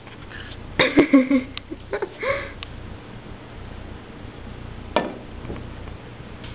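Short vocal sounds from a person about a second in and again around two seconds, then a single sharp knock about five seconds in, over a steady low hum.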